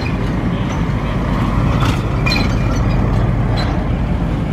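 A vehicle's engine running close by as it drives past, a steady low rumble, with a few short clicks around the middle.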